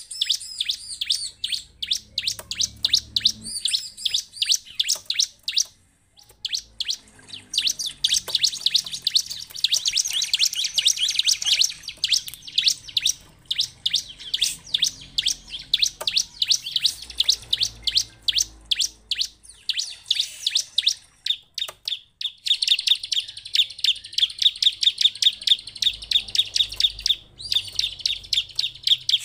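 Bar-winged prinia (ciblek) singing: fast runs of high, sharp chirps that break off briefly twice, then settle into a very even, rapid run of notes near the end.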